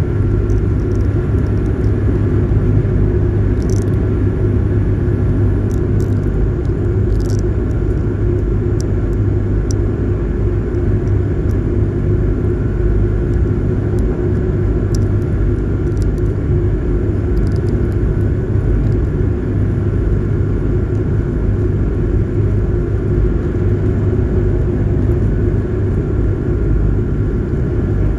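Passenger ferry's engines running under way, a steady low drone with a fainter steady hum above it.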